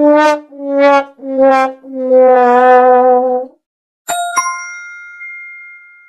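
Sad trombone "wah wah wah" effect: four muted-brass notes stepping down in pitch, the last held longer with a wobble, the classic comic sign of failure. About four seconds in, a bright two-note ding chime, a game-show correct-answer sound, strikes and rings away.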